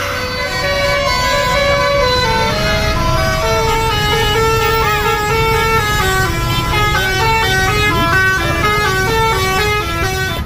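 Tour bus 'basuri' telolet musical horn playing a quick stepping melody of several notes at once, over the low rumble of the bus engine.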